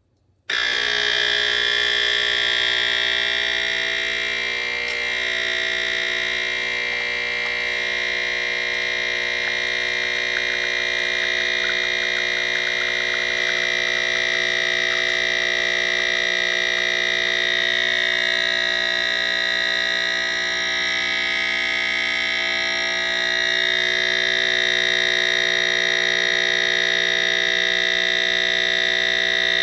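Background electronic music: a steady synthesizer drone of held tones that starts abruptly about half a second in.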